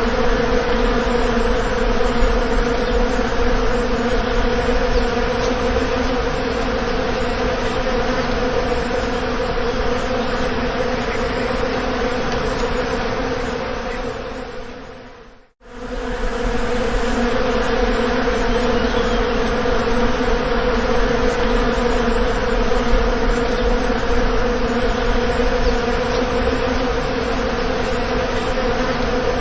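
Bees buzzing, a steady droning hum with a low pitch. About halfway through it fades out to a brief silence, then fades back in and carries on unchanged.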